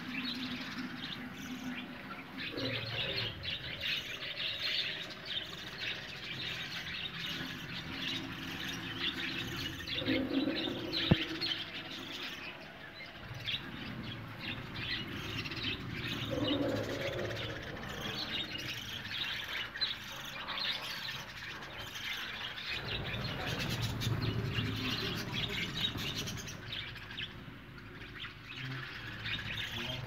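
A colony of budgerigars chattering, a steady stream of quick high chirps from many birds at once. A sharp knock about eleven seconds in, and a low rumble in the second half.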